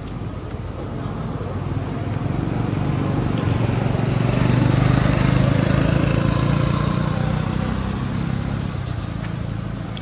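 A motor vehicle passing by: its engine grows louder to a peak about halfway through, then fades away.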